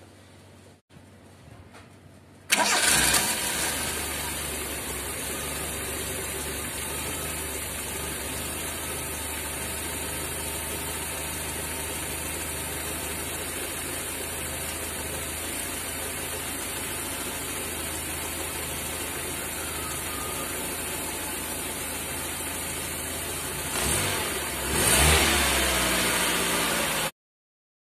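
Toyota Corolla Twincam carbureted engine starting about two and a half seconds in, then idling steadily with a clogged PCV valve, and revving up briefly near the end before the sound cuts off abruptly.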